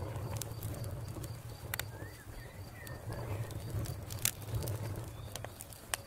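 Wood fire crackling, with sharp pops every second or so over a steady low rumble. A bird chirps faintly about two seconds in.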